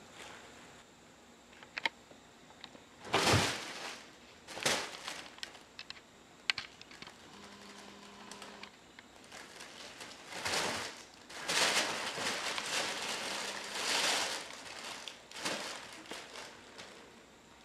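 A cat at play: repeated bursts of rustling and scrambling, the longest run lasting several seconds past the middle, with scattered light taps and clicks in between.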